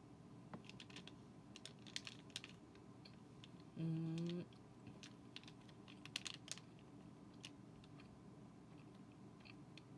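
Sparse, faint crinkly clicks from eating a SOYJOY almond-and-chocolate soy bar and handling its plastic wrapper, with a short hummed "mm" about four seconds in.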